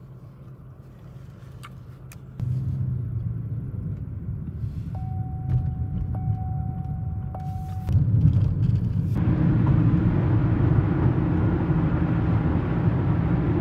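Car driving noise heard inside the cabin: engine and road noise as a steady low rumble. It gets louder in steps as the car picks up speed, and is loudest at highway speed over the second half.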